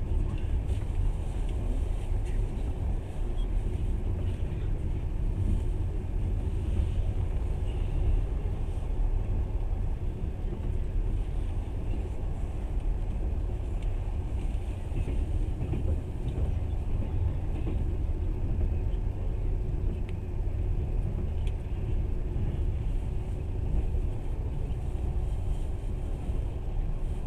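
Passenger train running along the track, a steady low rumble heard from inside the carriage.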